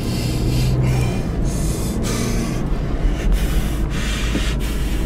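Car driving on a winding road, heard from inside the cabin: steady engine and tyre noise with a rough, rubbing hiss that swells and dips, and a low engine hum in the first second or so.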